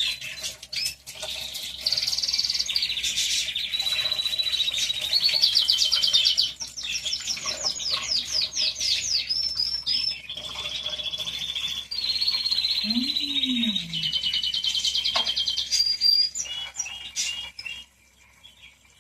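Songbirds singing a long, continuous song of high trills and chirps, which fades out near the end.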